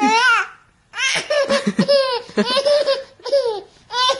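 A baby laughing hard in a string of short, high-pitched bursts, with a brief break about half a second in.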